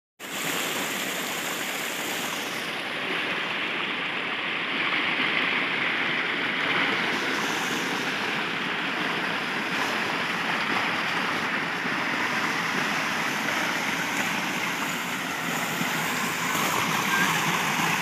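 Small rocky stream flowing steadily over stones and little cascades.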